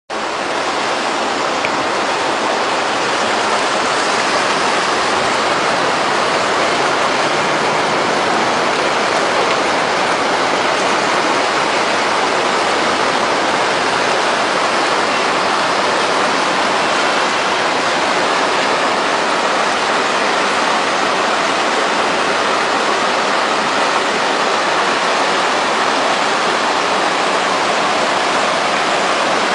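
Steady, loud rushing noise of typhoon weather: wind, driven rain and surf blending into one unbroken roar, with no single wave crash standing out.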